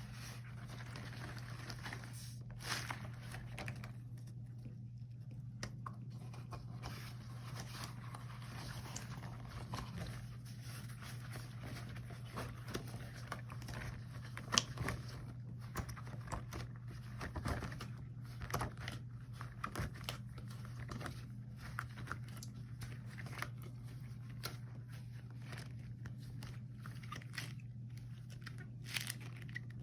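Rubber gloves handled close to the microphone: irregular crinkling, sticky crackling and small taps, with one sharper snap about halfway through, over a steady low hum.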